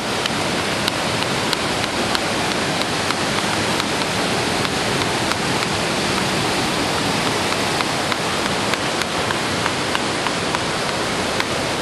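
Steady, even hiss of water, with scattered faint ticks.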